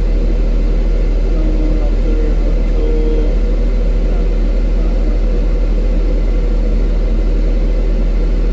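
Excavator's diesel engine running steadily at idle, heard from inside the cab.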